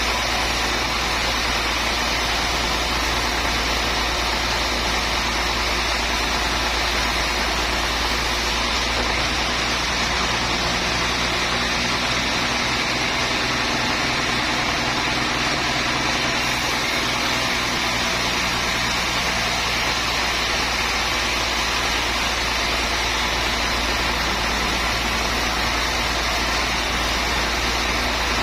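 Sawmill machinery running steadily: a continuous engine-like drone with several steady hum tones under a dense hiss. For several seconds about a third of the way through, the highest hiss thins and a few hum tones grow stronger.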